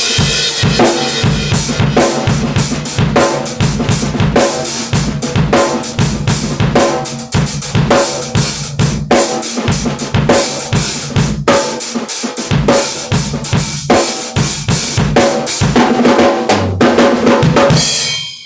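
Drum kit played in a fast, busy groove of kick drum and snare strikes with rimshots, the snare freshly fitted with an Evans HD Dry head. The playing dies away just before the end.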